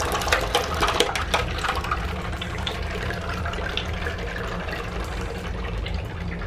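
Water in a foamy bathtub, rushing and splashing steadily with many small irregular splashes as a turtle bath toy paddles through it.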